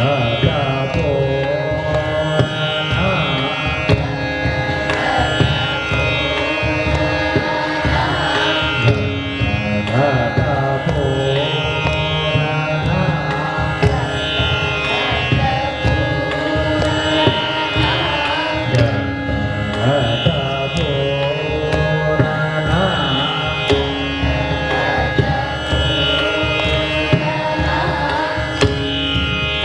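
Dhrupad vocal by a male singer, his voice gliding through the raag over a steady drone, with pakhawaj strokes keeping sooltaal, the ten-beat Dhrupad cycle.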